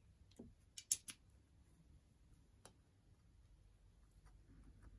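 A few faint clicks of small metal hand tools being picked up and handled, a cluster about a second in and one more a little later: a carb jet driver bit being taken up and set onto a carburetor jet. Otherwise little more than faint handling noise.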